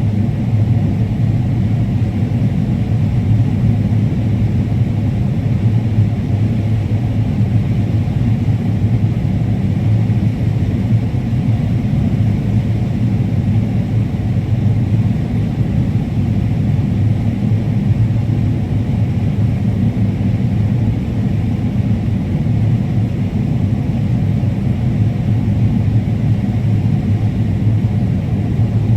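Combine harvester running steadily while cutting corn: a loud, even, low drone with no changes.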